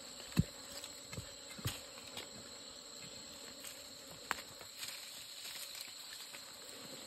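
Steady high-pitched insect drone, with a few short sharp taps scattered through it, the loudest about half a second in.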